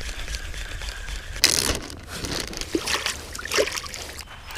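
Hands rinsing in shallow lake water at the shoreline: sloshing and splashing, loudest about a second and a half in and again near three and a half seconds.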